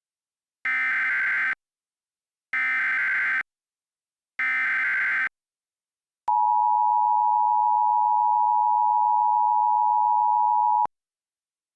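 Emergency Alert System SAME header: three short bursts of digital data tones about two seconds apart, which encode the alert. They are followed by the EAS attention signal, a steady tone of about four and a half seconds that cuts off suddenly.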